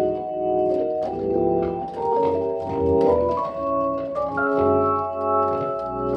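Hammond-style combo organ playing sustained chords that change every second or so, with held bass notes underneath played on MIDI bass pedals.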